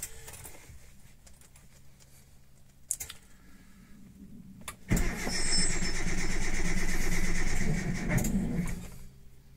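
Suzuki Samurai engine cold-started at −8 °C: after a click about three seconds in, the starter cranks loudly for about four seconds starting about five seconds in, the pitch rising near the end, then cuts off.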